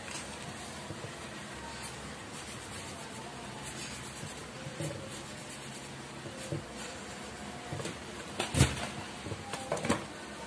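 Light taps and knocks of things being handled on a tabletop, over a steady room hiss. They grow busier in the second half, with the sharpest knock about eight and a half seconds in and a few more near the end.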